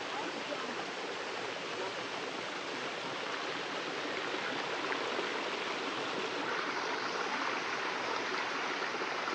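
Steady rush of water falling and flowing at a small waterfall.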